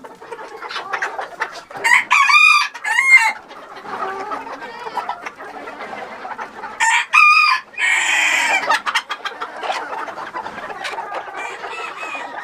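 A rooster crowing twice, about two seconds in and again about seven seconds in, over continual clucking from a flock of chickens.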